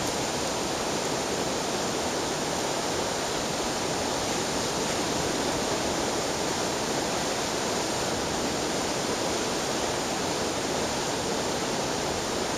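A river rushing steadily, running high after a day of rain.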